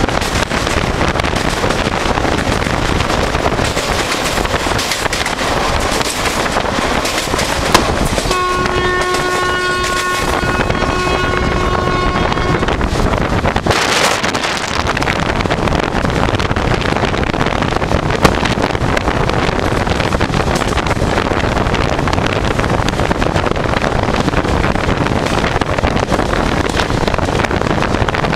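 Horn of an Indian Railways WAP4 electric locomotive sounding one long blast of about four seconds, starting about eight seconds in. It sounds over the steady rushing rumble of the express train running at speed, heard from aboard the train, with an occasional sharp click from the track.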